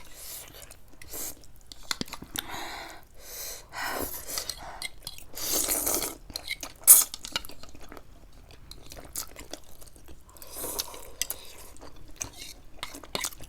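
Eating close to the microphone: cutlery clinking and scraping on plates and bowls, with chewing in between. A sharp clink about seven seconds in is the loudest sound.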